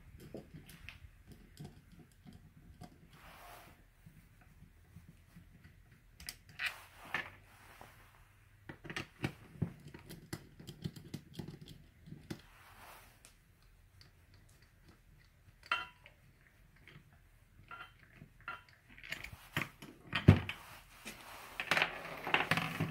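Intermittent clicks, taps and short rattles of a 5/16 nut driver and small plastic and metal parts being handled on a Fleck 5600 water softener valve during injector removal, with louder knocks in the last few seconds.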